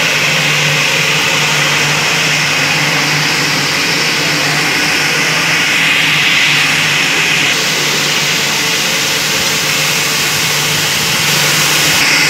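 Steady machine noise: a continuous hiss with a low hum underneath, unchanging throughout.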